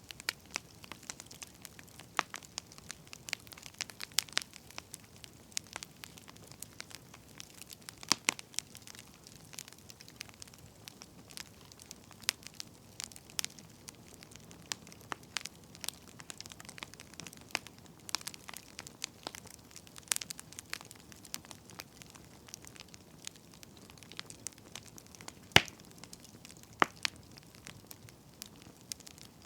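Firewood burning, crackling with irregular snaps and pops over a soft hiss, one pop louder than the rest a little before the end.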